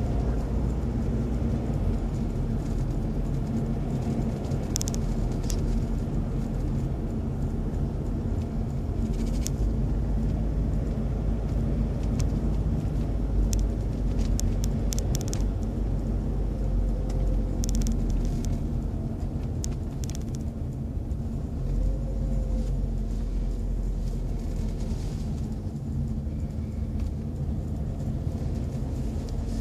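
Steady low road and engine rumble inside a moving car's cabin, with a few short, faint high ticks scattered through it.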